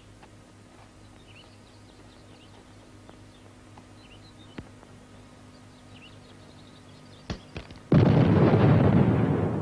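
Faint outdoor ambience, then about eight seconds in a land mine detonates with a sudden loud explosion, set off by a stone dropped onto it; the blast's rumble lingers and slowly dies away.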